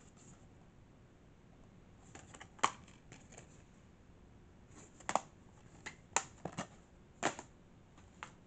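Plastic DVD case being handled, opened and shut: a scattering of sharp clicks and taps at uneven intervals, the loudest about two and a half and five seconds in.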